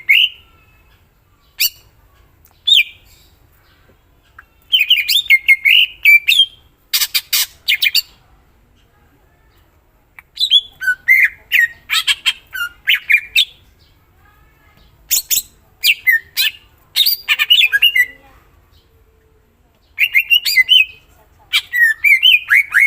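Cucak ijo (greater green leafbird) singing loudly in bursts of varied warbled phrases mixed with sharp, rapid chattering notes, with pauses of a second or two between bursts.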